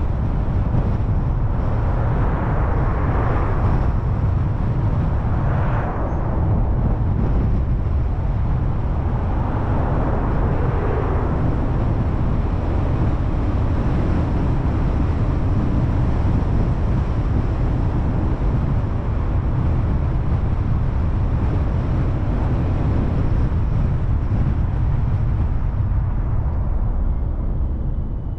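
Car driving on a town road: steady low rumble of road and wind noise, with a few brief swelling hisses in the first ten seconds. It eases off near the end as the car slows.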